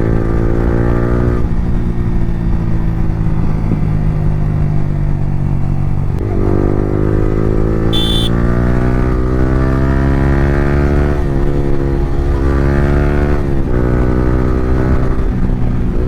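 Yamaha R15 V3's single-cylinder engine breathing through an Akrapovic R9 exhaust with the dB killer removed, under way: the pitch sags for the first few seconds, then about six seconds in it climbs steadily through a gear, drops at a shift, and climbs and drops twice more. A short high beep about eight seconds in.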